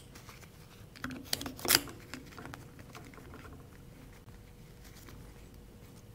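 Light clicks and handling of small screws and a T-handle hex key against the metal valve housing as the actuator's screws are started by hand; a cluster of clicks comes about one to two seconds in, then only faint ticks.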